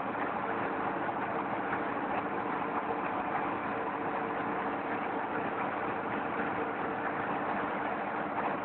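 Engine-driven clay brick-moulding machine running steadily, a constant engine hum with the machine's mechanical noise over it.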